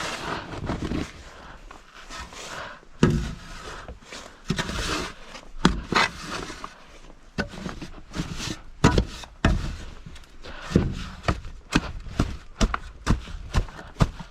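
Snow being shoveled: a shovel scraping over packed snow and knocking against it, with sharp strikes coming quicker and more regularly, about two or three a second, near the end.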